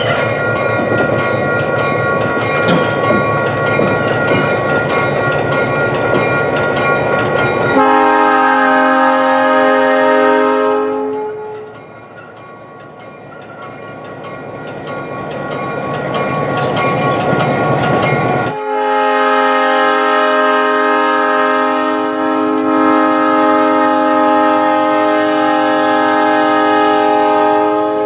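Diesel road-switcher locomotive rolling slowly past with its engine running and wheels clattering over the rails, then sounding its multi-note air horn: one blast of about three seconds, and after a pause a long blast of about ten seconds near the end.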